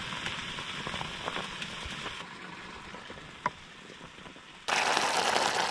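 Water at a rolling boil in a metal camping pot over an alcohol stove. A soft bubbling hiss with a single click partway through, then much louder, closer bubbling from about three-quarters of the way in.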